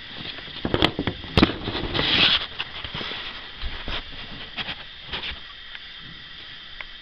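Handling noise from a handheld camera: a few sharp clicks and knocks in the first second and a half, a short rustle at about two seconds, then scattered lighter taps that die down after about five seconds, over a faint steady hiss.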